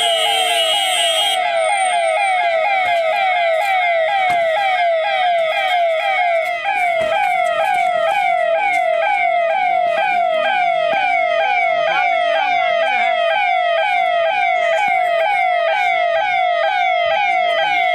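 Electronic vehicle siren wailing in a fast, repeating rising yelp, about two cycles a second. A steady horn tone sounds over it for the first second and a half.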